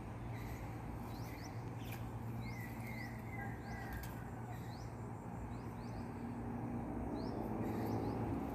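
Birds chirping: short rising chirps about once a second, with a brief run of lower chirps around the middle, over a steady low hum.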